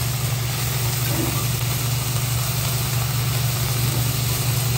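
Chopped vegetables sizzling on a hot steel hibachi griddle as they are stirred with a spatula, over a steady low hum.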